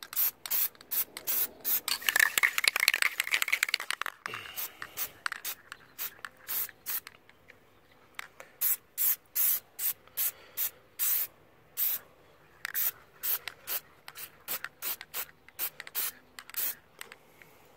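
Aerosol can of Plasti Dip rubber coating spraying onto a metal wiper arm in many short hissing bursts, with a denser, louder stretch of spraying about two to four seconds in.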